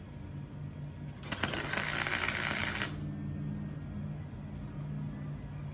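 A welder laying a short tack weld on a steel latch plate: about a second and a half of loud crackling hiss that starts and stops abruptly, over a steady low hum.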